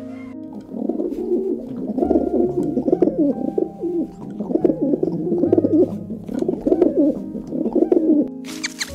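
Dove cooing in a run of repeated low, rolling phrases over background music, followed near the end by a brief burst of high-pitched squeaks.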